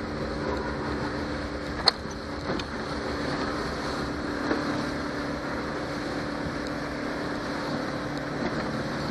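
Johnson 90 hp V4 two-stroke outboard running steadily under way, with wind and water noise. A sharp knock comes about two seconds in, and a weaker one just after.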